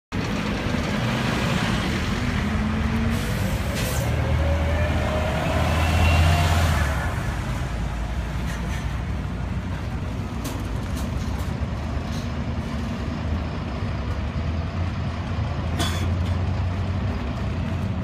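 City bus engine running as the bus passes close and pulls away, with a rising whine and the sound loudest about six seconds in, over steady street traffic. Two short sharp sounds, about four seconds in and near the end.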